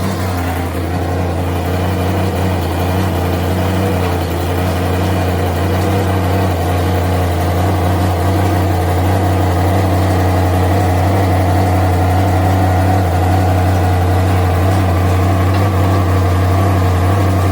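Big-block V8 in a 1979 GMC Caballero idling steadily with a loud exhaust note, leaking at the header collector joint and along poorly welded exhaust seams.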